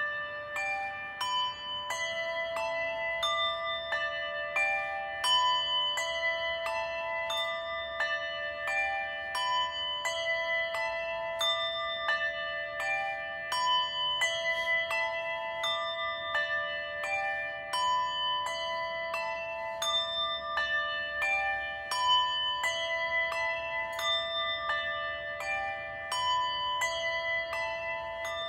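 Several bells of different pitches rung together by a small group, a new strike about twice a second, their tones ringing on and overlapping: a memorial tolling in remembrance of the dead.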